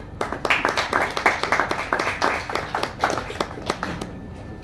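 Audience clapping: a short round of applause that starts almost at once and dies away after about four seconds.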